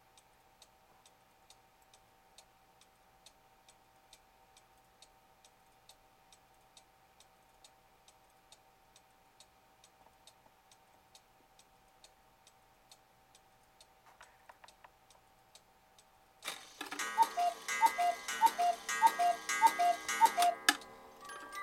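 Mechanical cuckoo clock ticking steadily about two times a second, with a few mechanism clicks as the strike is released, then about two-thirds of the way in the cuckoo starts calling, a quick run of two-note high-low calls over the clatter of the moving works.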